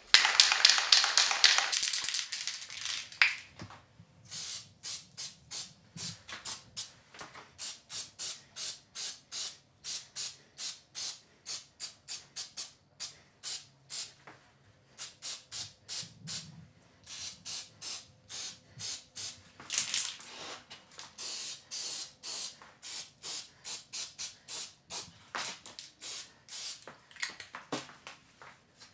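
Aerosol can of spray primer hissing: one longer spray at the start, then many short spurts, about two a second, with brief pauses between runs.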